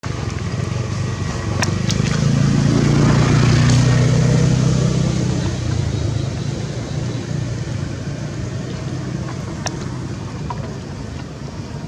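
A motor vehicle's engine passing nearby: a low hum that swells to its loudest about four seconds in, then slowly fades.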